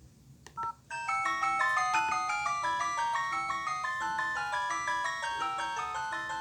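Nokia ringtone played through an LG B470 phone's small speaker: after a couple of clicks and a short beep, a fast tune of quick high notes over a repeating low note starts about a second in and runs on steadily.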